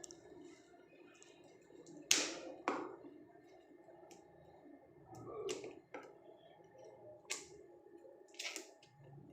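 Sealed phone box being worked open: a handful of sharp crackles and snaps of the packaging, spaced a second or more apart, over faint handling noise.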